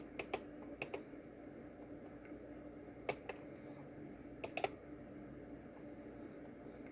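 A few short, sharp clicks from the small push-buttons on an adjustable current-source board as its current setting is stepped up: a cluster just after the start, one about three seconds in and a quick pair around four and a half seconds. A faint steady hum lies underneath.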